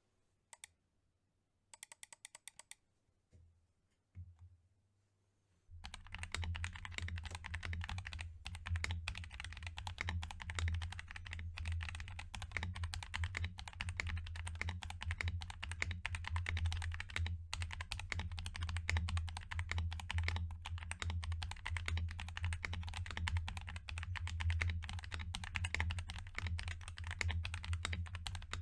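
Typing on a Glorious GMMK mechanical keyboard fitted with lubed Gazzew Boba U4T tactile switches (62 g springs), lubed stabilizers and Ducky Skyline keycaps. A few single keystrokes and a quick short run of them come first, then from about six seconds in a fast, continuous flurry of keystrokes.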